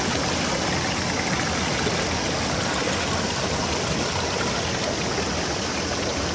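Steady rush of flowing stream water, an even unbroken wash of noise.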